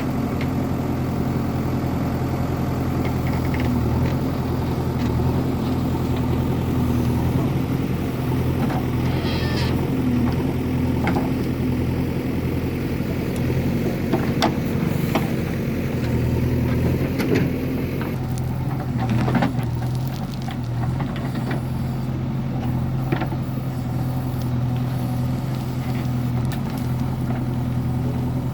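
JCB 3DX backhoe loader's diesel engine running steadily while it digs, with scattered knocks and clanks from the working machine.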